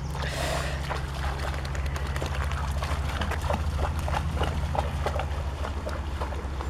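Dog splashing as she wades and paws through shallow river water, a string of short splashes over a steady low rumble.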